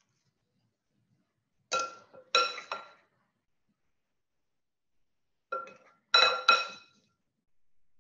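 Salad servers clinking against the ceramic serving bowl as salad is transferred into it: two brief clusters of two or three ringing clinks, about two seconds in and again about six seconds in.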